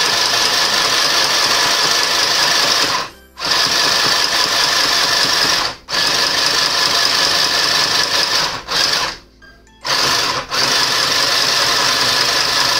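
Mini electric sewing machine's motor running steadily as it winds thread onto the bobbin on its side spindle, with a continuous whine. It stops briefly several times and drops out for about half a second after nine seconds.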